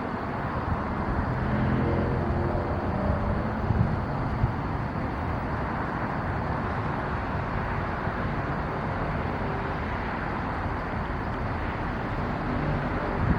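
Steady rumble of outdoor vehicle traffic, with an engine note passing in the first few seconds.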